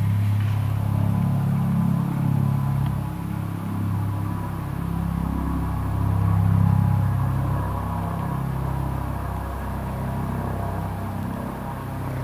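Eurocopter EC 155 helicopter on approach: a steady low drone from its rotors and turbines with a faint higher whine above it, swelling a little about six seconds in.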